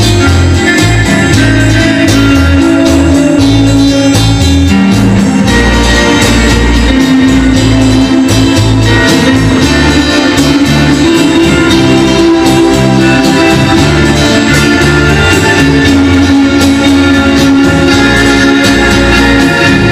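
A vintage rock and roll or rhythm and blues record playing, with a driving bass line and full band.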